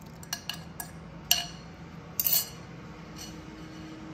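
Kitchen utensils clinking against a mixing bowl while beaten eggs are added: a few light taps, a sharper clink about a second in, and a short clatter just after two seconds, over a faint steady hum.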